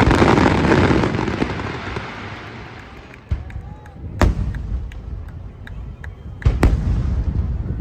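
Aerial firework shells bursting: a big burst right at the start that dies away in a long low rumble, then sharp booms about three and four seconds in and a quick pair near the end, each followed by a rolling rumble.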